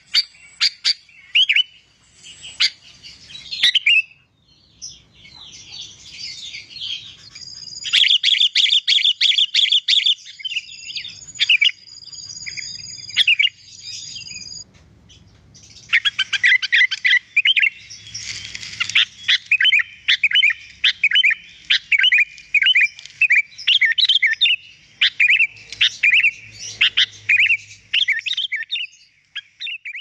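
Sooty-headed bulbul (kutilang) singing busily: sharp chirps and warbled phrases, a fast trill about eight seconds in, a few seconds of high held whistles, then a near-unbroken run of quick chirping notes through the second half.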